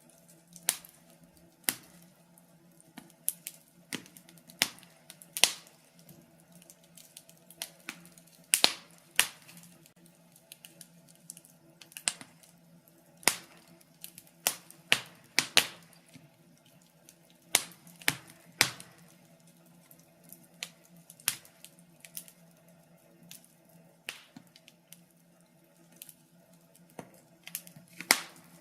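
Wood fire in a fireplace crackling: irregular sharp pops and snaps, a few of them loud, over a faint steady low hum.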